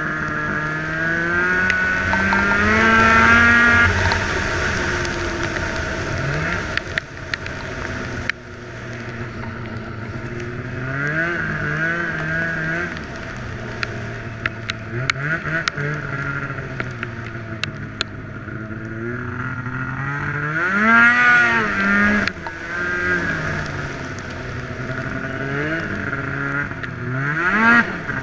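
Snowmobile engine running, its pitch rising and falling repeatedly as the throttle is opened and eased off, with several sharp revs up and back down.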